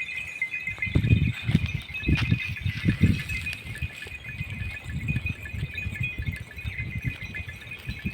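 Bells on a flock of sheep and goats jingling steadily, with irregular low thuds from the moving animals.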